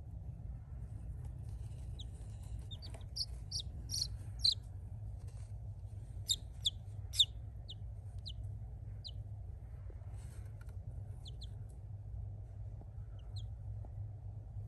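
Newly hatched Australorp chicks peeping: short, high peeps, scattered and in quick runs, most of them between about three and seven seconds in. A steady low hum runs underneath.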